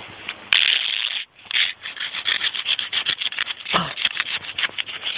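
A knife blade stabbing and chipping at thick lake ice in rapid, sharp strikes, sending ice chips flying; the blade is too dull to break through. A brief grunt-like voice sound comes partway through.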